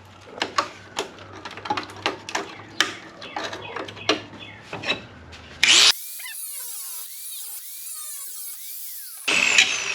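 Sheet-metal bodywork being cut with a power cutting tool: a string of sharp taps and clicks of tool and metal handling, a short loud burst of the tool about halfway, a quieter high hiss, then the tool running again near the end with a steady high whine.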